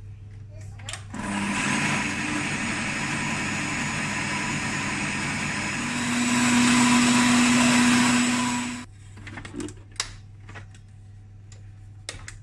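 Electric stand mixer whisking egg whites, sugar and cream of tartar into meringue: the motor starts about a second in, runs louder with a higher steady hum from about six seconds, and stops near nine seconds. A few light knocks follow.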